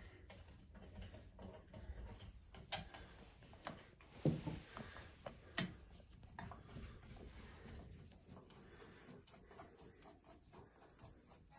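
Faint, scattered clicks and knocks of a push-button basin waste's fittings being handled and screwed together under a sink, with a few louder knocks around the middle.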